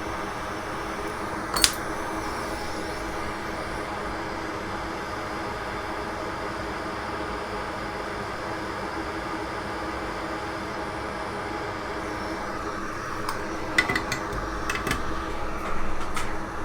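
Steady hum of a fan on the soldering bench, with one sharp click about one and a half seconds in and a run of small clicks and taps near the end.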